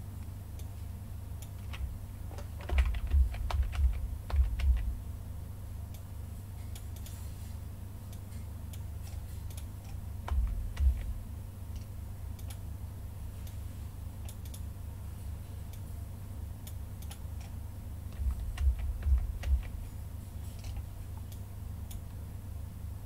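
Computer keyboard keys clicking in three short bursts, a few seconds in, around the middle and near the end, each with low thuds, over a steady low hum.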